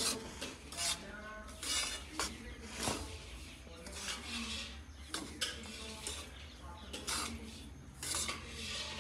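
Steel spatula scraping and stirring flour as it roasts in a wok, in short irregular strokes about two a second.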